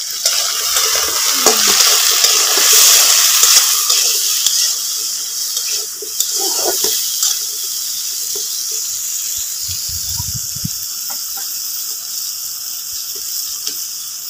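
Flat beans sizzling in hot oil in a karahi, loudest in the first few seconds and then settling to a steady lower sizzle, with scattered scrapes of stirring.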